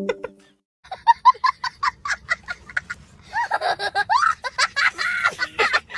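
A person laughing in quick, short bursts, starting about a second in after a brief silence.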